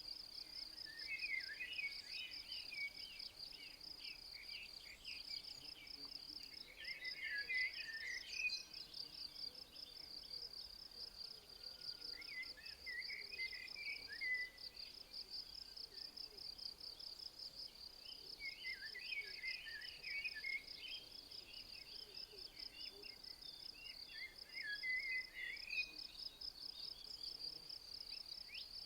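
Insects chirring steadily in a fast, pulsing, high trill, while a small songbird sings short, quick, warbling phrases about five times, every five or six seconds.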